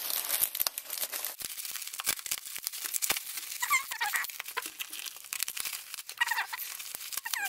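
Plastic packaging crinkling and rustling, with scattered sharp clicks as items are unwrapped. Two short, wavering high squeaks come through, about four and six seconds in.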